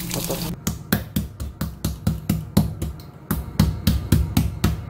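A metal spoon knocking against a non-stick frying pan again and again, about five quick knocks a second with short pauses, as a cheese pancake is chopped up in the pan.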